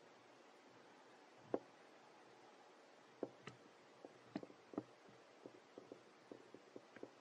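Small mouth clicks from a baby macaque suckling at its mother's nipple: one about one and a half seconds in, then a run of them, a few a second, from about three seconds in, over a faint steady hiss.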